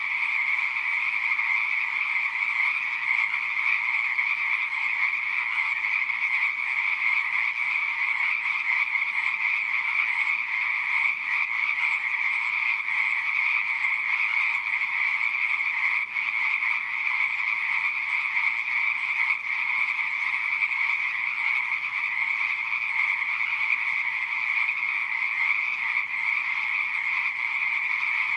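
Chorus of many pond frogs calling at once, a dense, steady din with no pauses.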